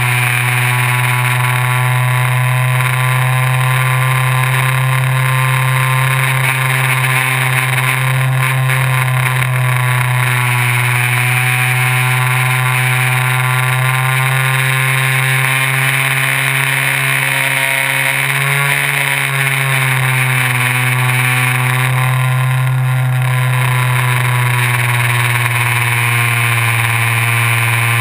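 Multiplex FunCub RC plane's electric motor and propeller running steadily, heard up close from a camera mounted on the plane: a loud, even buzz whose pitch dips briefly and climbs back about two-thirds of the way through, as the throttle or airspeed changes.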